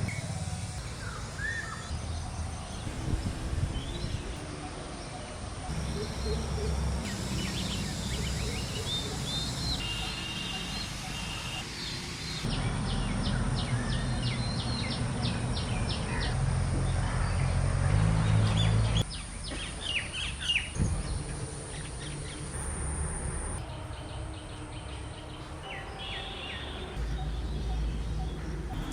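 Birds chirping and calling over a steady outdoor background hum, the background changing abruptly a couple of times.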